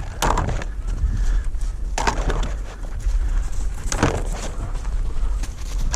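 Dry crunching and rustling in three short bursts, about two seconds apart, over a steady low rumble.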